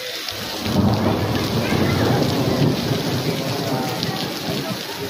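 Heavy rain pouring down on pavement, with a deep rumble that swells about half a second in and slowly dies away over the next few seconds.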